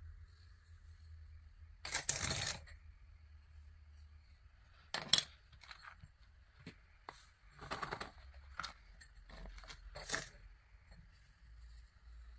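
Coloured craft sand and a wooden spoon handled on a sand-art card over a wooden board: four short rustling bursts as loose sand is tipped and shaken off the card, with a few light taps in between.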